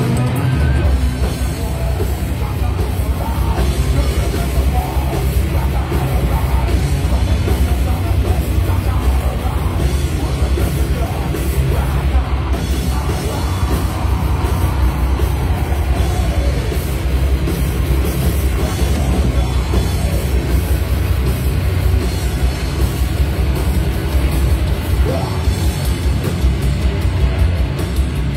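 Heavy metal band playing live: distorted electric guitars, bass and drum kit, with a vocalist singing into a microphone. The bass and drums come in at full weight right at the start, after a guitar alone.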